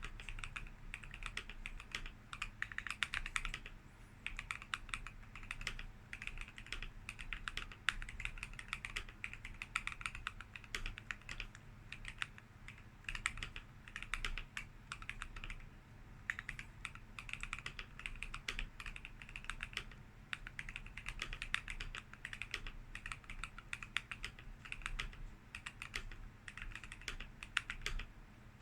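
Steady typing on a Keychron Q1 mechanical keyboard with lubed and filmed Gazzew Boba U4T 62 g tactile switches, ASA-profile keycaps and a tape-modded, foam-padded case: a fast stream of keystrokes in runs with short pauses between them.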